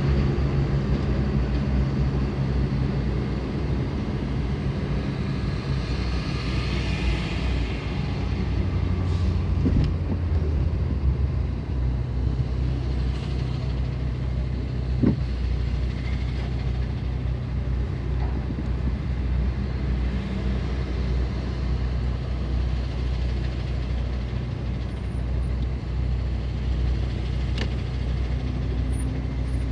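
Engines of vehicles in a slow or stopped highway traffic queue, heavy trucks among them, giving a steady low rumble. A slightly heavier engine note swells for a couple of seconds about a third of the way in.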